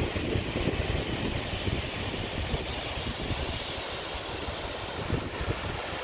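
Steady rushing of the Casca D'anta waterfall pouring into its pool, with wind buffeting the microphone in uneven gusts.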